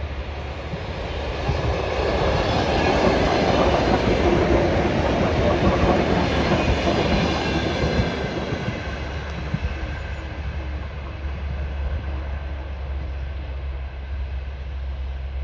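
Electric commuter train passing close by, its rumble and wheel clatter on the rails building to a peak over the first half, then fading as the train draws away.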